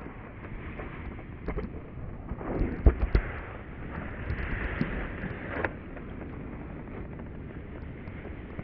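Wind rumbling on the microphone, with a cluster of loud low bumps about three seconds in and a few scattered clicks.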